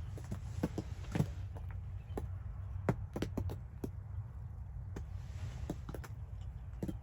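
Irregular sharp taps and clicks over a steady low rumble.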